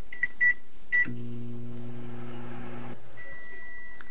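Microwave oven keypad giving a few short high beeps as the cooking time is entered. The oven then runs with a steady low hum for about two seconds. A long, steady high beep follows, signalling that cooking has finished.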